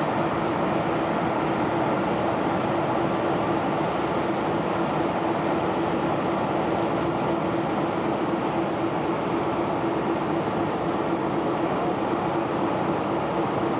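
Cargo barge's unloading machinery running steadily, a continuous mechanical rumble with a constant hum through it.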